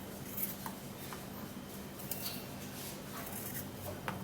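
Faint rustling and a few light clicks of kitchen things being handled, over a steady low hum.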